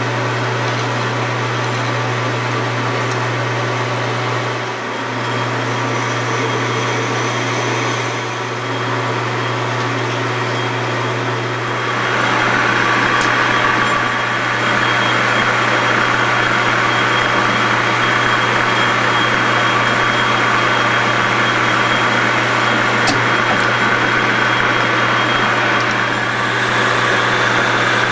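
Metal lathe running with a steady motor drone while drilling and turning aluminum bar stock. The machine gets louder a little under halfway through as the cut changes from drilling to turning.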